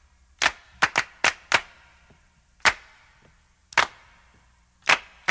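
A series of sharp cracking hits, like claps or cap-gun pops: a quick cluster of five near the start, then single cracks about a second apart.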